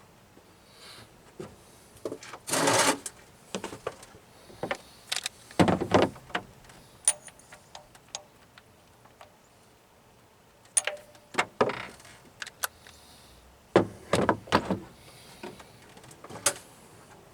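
Hand work on the truck's fuel lines: scattered clicks and knocks with a few short scraping, rustling spells as old hoses and fittings are handled and pulled free.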